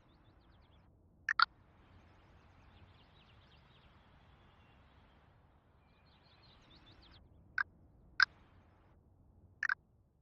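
Short, sharp bird chirps, a quick pair about a second and a half in and three more spaced out near the end, over faint outdoor background with distant high twittering.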